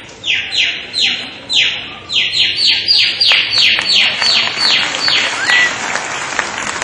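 A person's vocal imitation of baby chicks peeping: a string of high, sharply falling peeps, about two a second at first, then quicker and closer together. The peeps stop near the end, giving way to a steady rush of noise.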